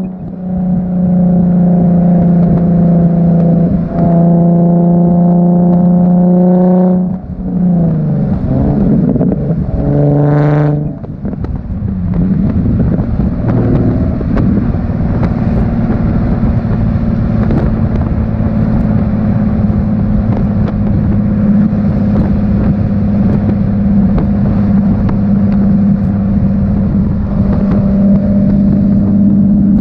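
Nissan 370Z's 3.7-litre V6 running through a Tomei Expreme Ti titanium exhaust, heard from outside the car. The exhaust note holds a steady pitch, falls and climbs again twice between about seven and eleven seconds in, then settles into a steady drone with a rushing noise underneath.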